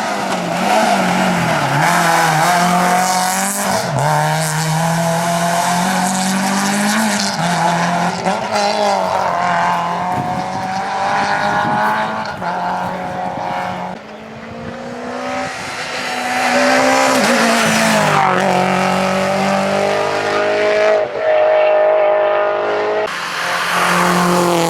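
Rally cars at full stage speed, engines revving hard and rising and falling in pitch with sharp breaks at the gear changes. The sound dips about 14 seconds in and then builds again as another pass comes through.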